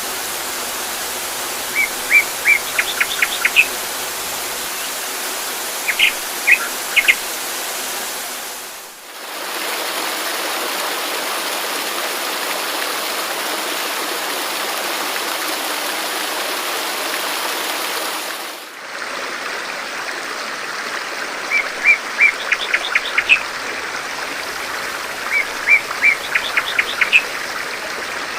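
Steady rush of a waterfall with a small songbird chirping in short repeated phrases of a few notes and a quick trill every few seconds. The birdsong drops out through the middle stretch, and the water sound dips briefly twice, about 9 and 19 seconds in.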